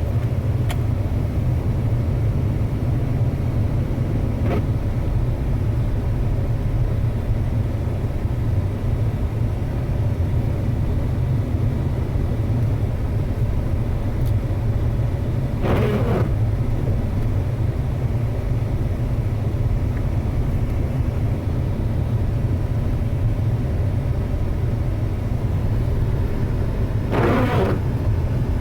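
A 2006 Ford Expedition being driven, with a steady low vehicle rumble and two short swishes, one about halfway through and one near the end.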